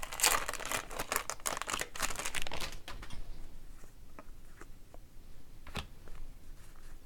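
A trading card pack's wrapper being torn open and crinkled for about three seconds, then fainter scattered clicks and taps of the cards being handled.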